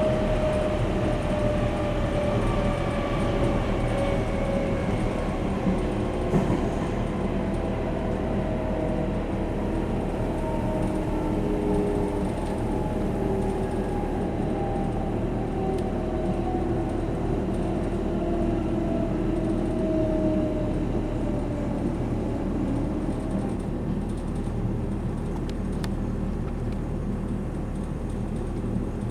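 Class 480 S-Bahn electric multiple unit heard from inside the car, slowing down: the traction motors' whine falls slowly in pitch over the steady rumble of the wheels and fades near the end as the train comes in to stop at its terminus.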